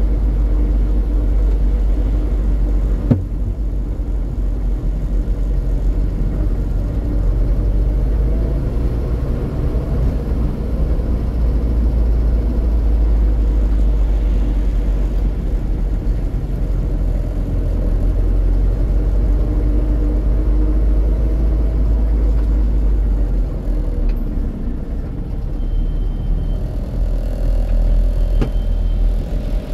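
Steady low rumble of road and wind noise from a vehicle moving along a town street, easing off about 24 seconds in as it slows to a stop. A single sharp knock about three seconds in.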